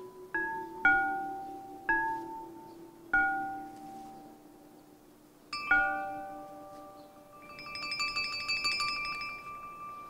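Celadon porcelain percussion instruments struck one note at a time: four clear ringing notes in the first few seconds, each dying away, over a low steady tone. Then a quick pair of strikes near the middle, and a rapid shimmering jingle of many small porcelain pieces that swells and fades over about two seconds near the end.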